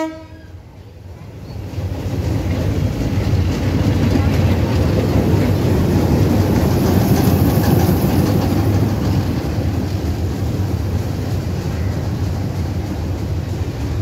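Sri Lanka Railways diesel locomotive passing close by: its horn cuts off at the very start, then the engine rumble and wheels on the rails build about two seconds in, are loudest as it goes by, and ease slightly as it moves away.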